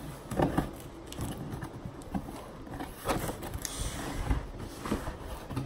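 Cardboard shipping box being handled and opened: scattered scrapes, taps and rustles, with a brief longer scrape a little over halfway through.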